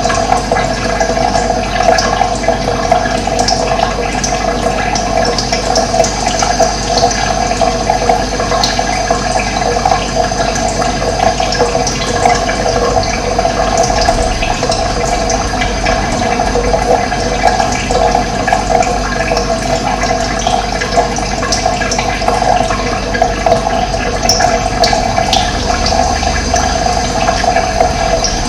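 Steady rushing of running water, with a few faint, brief high chirps of birds.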